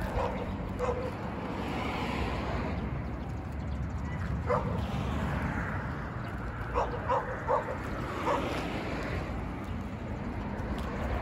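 A dog giving short, high whines and yips: one near the start, another around four and a half seconds in, then a quick run of three and one more a moment later.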